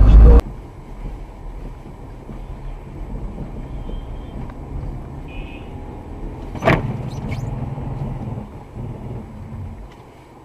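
Car driving, heard from inside the car: a steady low engine and road hum. A louder rumble cuts off abruptly just after the start, and there is a single sharp knock about six and a half seconds in.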